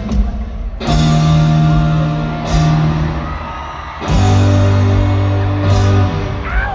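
Live rock band playing loud held chords on electric guitar, bass and keyboard, recorded from within the arena crowd. The band comes in on a chord about a second in and moves to a heavier chord about four seconds in.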